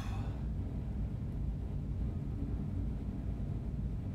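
Steady low rumble of room noise with no distinct sounds over it.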